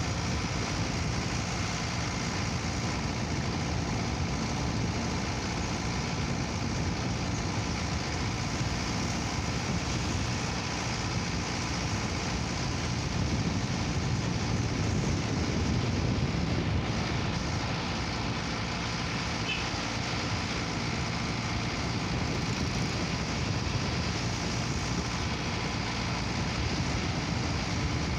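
Steady engine and road noise of a moving vehicle, heard from on board, growing a little louder midway.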